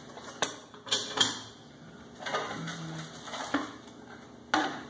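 Plastic packaging crinkling and rustling as cookware pieces are handled and pulled out of a cardboard box, with a few sharp clicks and knocks in the first second or so and again near the end.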